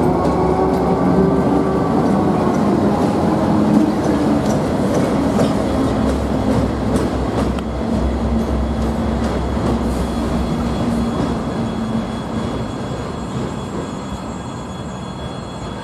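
TEM7A diesel shunting locomotive and freight wagon rolling past: the diesel engine's steady drone with wheels clicking over rail joints and points, fading slowly as the locomotive moves away.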